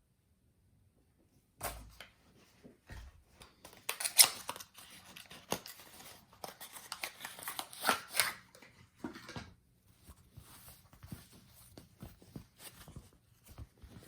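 Packaging and small gimbal parts being handled: irregular rustling and clicks, loudest about four and eight seconds in.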